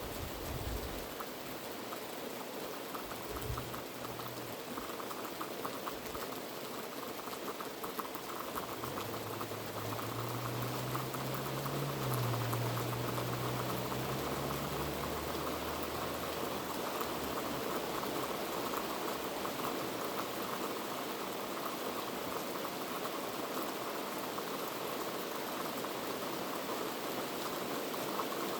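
Heavy rain falling steadily, a dense even hiss of drops. For several seconds in the middle a low rumble sounds under it and then fades.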